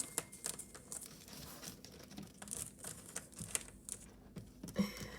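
Faint rustling and scattered light clicks from a necklace being handled and laid out to be measured.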